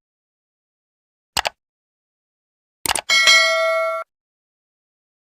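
Subscribe-animation sound effect: a sharp click, then a quick double click about a second and a half later, followed at once by a bright bell ding that rings for about a second and cuts off.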